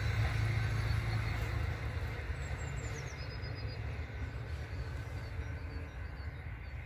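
Low rumble of a Stadler GTW diesel railcar fading steadily as it moves away down the line, with a few faint high whistling notes above it.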